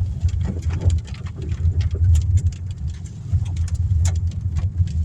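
Car driving on a dirt road in the rain, heard from inside: a steady low rumble of tyres and engine, with many scattered sharp ticks of raindrops hitting the car.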